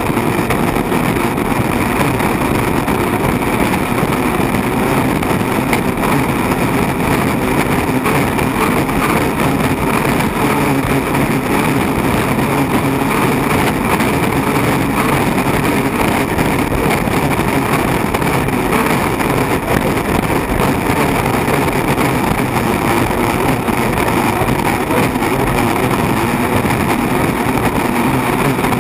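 Unlimited hydroplane's turbine engine running flat out at racing speed: a steady, loud rush of engine, wind and water heard from inside the closed cockpit.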